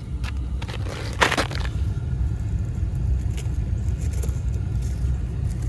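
Steady low rumble with a few light clicks and a short rustle about a second in, like handling noise as parts and tools are moved.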